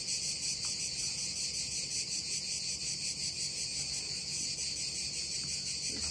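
A steady, high-pitched chorus of insects chirring, with a faint low hum underneath.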